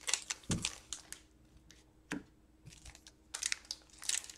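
Quiet handling of an Upper Deck Series 2 hockey card pack: a few scattered light clicks and taps, then crinkling of the foil wrapper as it is torn open near the end.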